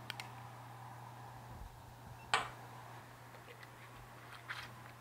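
A steady low hum with a few light clicks, and one sharper knock about two seconds in, as a ceramic-coated grill pan is moved on a gas stove's grate while butter melts in it.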